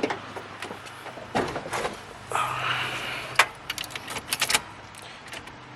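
Scattered clicks and knocks of a Chevrolet C10 pickup's door and ignition key as a start is tried, with a brief rasping noise about two and a half seconds in. The engine does not crank: the battery is dead.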